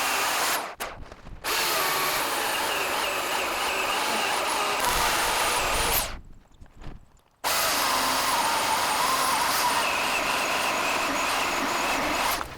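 Power saw cutting through a wooden log, running steadily with a wavering whine. The sound stops briefly twice: about a second in and again around six seconds in.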